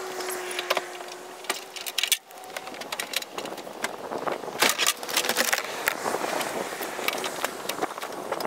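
Irregular clicks, knocks and rattles of a plastic sit-on-top kayak and its tie-down straps being handled and lifted off a pickup truck's tray, over a steady outdoor hiss.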